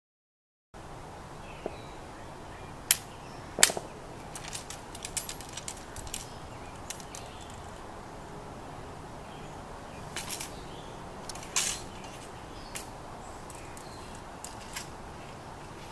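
Scattered light clicks and knocks from a flintlock musket and its fittings being handled during drill, over a steady outdoor background hiss. The two sharpest come about three seconds in, with more small rattles soon after and again around ten to twelve seconds in.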